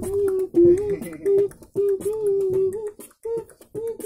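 A man beatboxing: sharp percussive mouth clicks and hissing hi-hat sounds in a quick rhythm, woven with a pitched vocal line that moves up and down between the beats.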